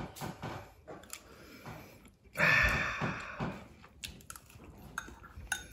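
Eating at the table: a metal spoon clicking and scraping in a ceramic rice bowl, with one louder scrape lasting about a second near the middle, amid soft chewing.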